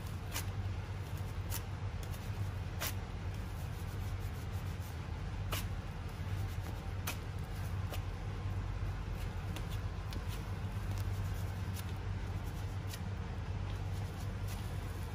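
Scattered short clicks and rustles of waxing strips being pressed, rubbed onto an arm and handled, with wooden spatulas at the wax pot, over a steady low room hum.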